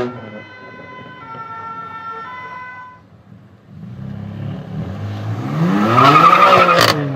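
A siren-like steady tone shifting pitch in steps for about three seconds, then a car revving hard. The car is the BMW M4 F82's twin-turbo straight-six through its loud Fi aftermarket exhaust, rising in pitch to its loudest about six seconds in, with a crackle, then falling away as it passes.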